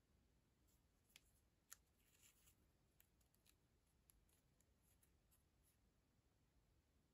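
Near silence with faint scattered crinkles and ticks as a flat paper craft band is handled and pulled into a knot.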